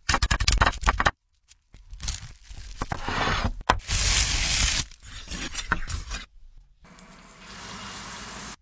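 Food-handling and cooking sounds in short clips joined by abrupt cuts: a rapid run of crackles, then longer stretches of crunching, tearing or sizzling noise, with a steadier hiss near the end.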